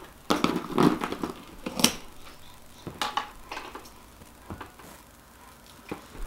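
Hands handling a large cardboard box: a cluster of knocks and scrapes on the cardboard in the first two seconds, then a few scattered taps.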